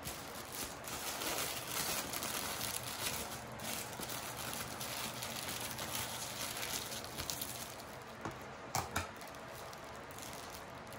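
Metallic foil gift wrap crinkling and rustling as hands fold and press it into place, with two sharper crackles close together about nine seconds in.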